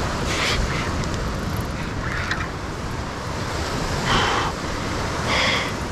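Ocean surf washing against the foot of a sea cliff, with wind on the microphone and a few short hisses on top.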